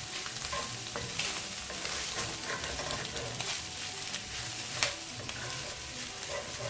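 Minced chicken sausage and capsicum sizzling in a pan on a high flame while being stirred, with the utensil clicking and scraping against the pan; one sharper knock about five seconds in.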